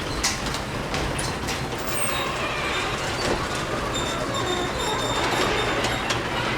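Garage door rolling along its metal tracks: a steady rumbling rattle with scattered clicks and faint high-pitched squeals.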